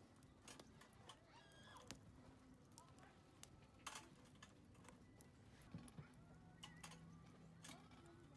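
Faint wood fire crackling in a small stainless steel fire pit, with scattered sharp pops and clicks, while thin steel grill rods clink as they are laid across the pan.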